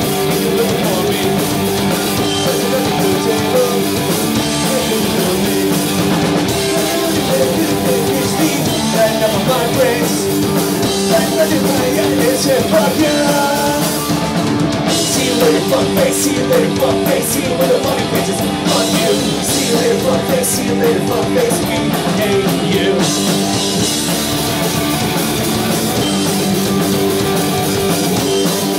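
Live punk rock band playing loudly: electric guitars, bass guitar and a drum kit, with a run of hard cymbal hits around the middle.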